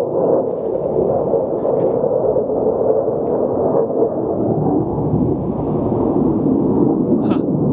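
Jet engine noise from fighter jets flying overhead: a steady, low rushing noise with no break.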